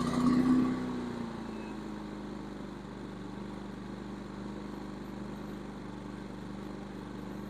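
Champion dual-fuel generator's engine running just after starting. It is loud and rough for the first second or so, then its pitch eases down slightly and it settles into steady, even running. It is running on gasoline now that its fuel shutoff solenoid has power from the battery on charge.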